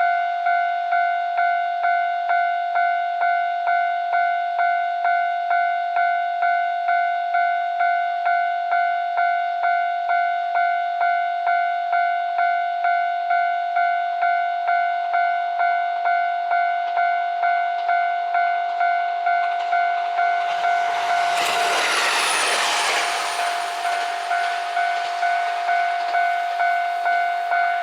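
Japanese level-crossing warning bell ringing steadily, about two strikes a second. About 21 seconds in, a JR Hokkaido H100 'DECMO' diesel-electric railcar rushes over the crossing: its noise swells for about three seconds over the bell.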